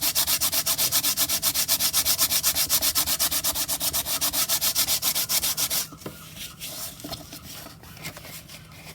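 Fast back-and-forth hand sanding of a card tag, about eight scraping strokes a second, stopping about six seconds in; a few faint rubs and handling sounds follow.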